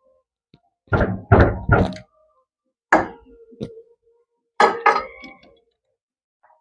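Sharp metal knocks, about seven in irregular groups, some with a brief ring: a spanner being struck to break loose the 14 mm nut holding the magneto flywheel on a Hero Splendor's engine.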